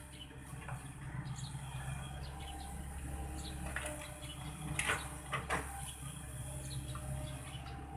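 Excavator engine running with a steady low rumble, with a few sharp clanks about four to five and a half seconds in, and birds chirping.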